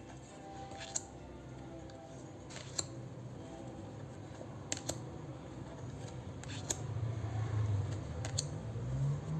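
Tarot cards and their packaging being handled: scattered sharp clicks and taps, seven or so, over a low hum that swells in the last few seconds.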